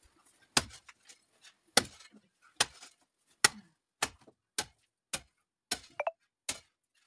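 A long-handled digging tool striking and breaking up a hard-packed earthen floor, about nine sharp strikes at an uneven pace of roughly one a second.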